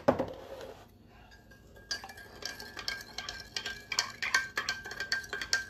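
A spoon stirring sugar into a cold drink, with rapid clinks against the side of the container. A single knock opens it, and the clinking starts about two seconds in.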